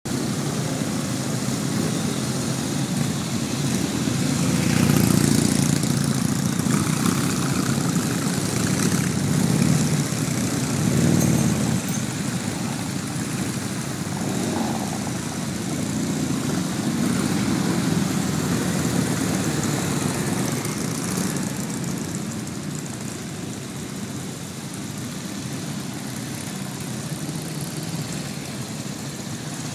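A procession of motorcycles, Nortons among them, riding past one after another at low speed, the engine sound swelling and fading as each bike goes by. The sound thins out over the last several seconds as fewer bikes pass.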